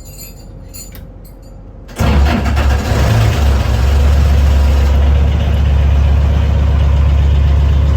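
Lifeboat's diesel engine starting on a newly fitted battery, the fix for its earlier failure to start on low-CCA batteries. It catches about two seconds in, then runs steadily and loudly.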